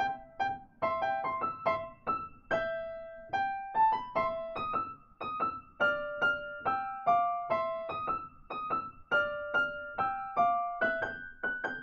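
Piano playing the teacher duet part of a primer-level piece in a brisk, steady march tempo of about 144 beats a minute, both hands striking short chords and melody notes.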